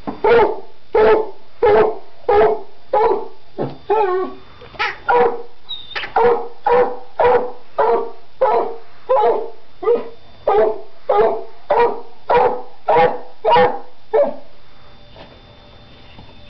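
A dog's squeaky plush toy squeaking over and over as the hound chews on it, about one and a half squeaks a second at the same pitch each time, stopping a couple of seconds before the end.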